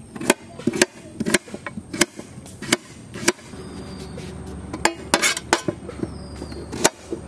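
Kitchen knife cutting young pumpkin on a metal plate: a run of sharp, irregularly spaced clicks and taps as the blade slices through the flesh and rind and strikes the metal, with a quick flurry a little past the middle.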